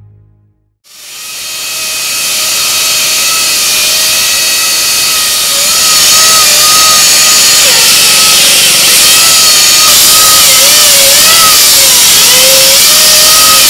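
Stanley hydraulic chainsaw cutting into a concrete slab, water fed onto the chain. It comes in about a second in, builds over a couple of seconds to a loud, steady cutting noise, and its pitch wavers as it works through the cut.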